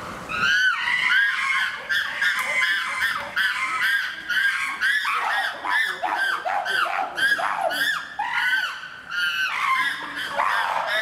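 Chimpanzees screaming, a rapid run of rising-and-falling calls from several voices overlapping.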